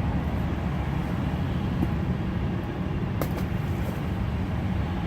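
Steady low rumble of road traffic, with a short click about three seconds in.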